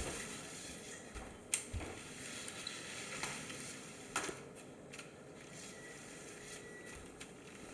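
LEGO Technic remote-control car, driven by four Power Functions L motors, running at a distance: a faint, even hiss of motors, gears and tyres, with a few sharp clicks.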